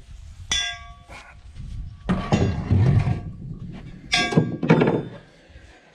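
Metal equipment being handled and set down: two sharp metallic clanks, about half a second in and again about four seconds in, each ringing on briefly, with scraping and thudding between them.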